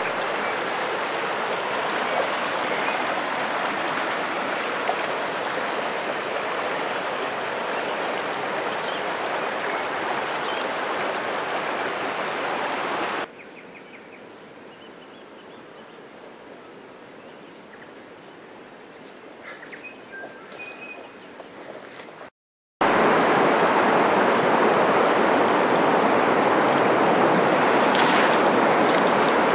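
Steady rush of a stream's running water. About 13 s in it drops to a much quieter background with a few faint high chirps, then, after a brief silent break, louder rushing water returns.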